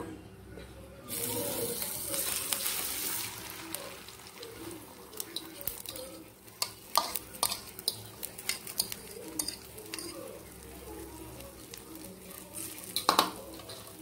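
Beaten egg, potato and onion mixture poured into hot oil in a non-stick frying pan: a loud sizzle starts about a second in, then settles into steady frying with scattered sharp crackles and pops, and a burst of louder pops near the end.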